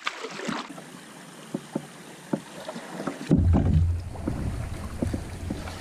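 Canoe paddling through shallow river riffles: water washing around the hull with scattered short knocks of paddle strokes. About three seconds in, a loud low rumble sets in abruptly.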